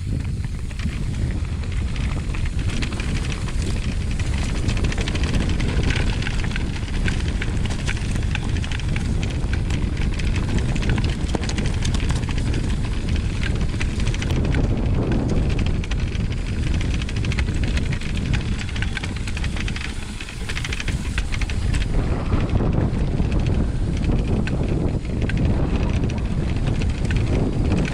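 Mountain bike riding fast down a rough track: wind buffeting the camera microphone over the rumble of the tyres, with many small clicks and rattles from the bike and stones.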